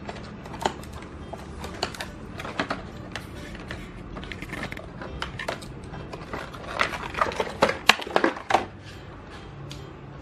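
Scissors cutting open a stiff clear plastic blister pack, with irregular clicks, snaps and crackles of the plastic as it is cut and handled. The loudest snaps come about three quarters of the way through.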